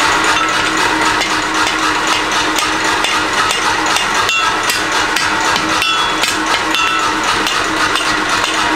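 Hand hammer striking the white-hot end of a wrought iron bar against the anvil to upset it: a quick run of sharp metallic blows over a steady hum.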